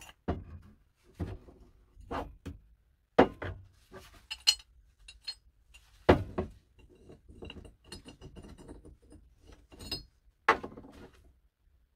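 Metal parts of an old bathroom scale's inner mechanism, a tube and spring assembly, clinking and knocking against each other and the wooden workbench as they are handled and taken apart: a dozen or so separate knocks, some with a short metallic ring.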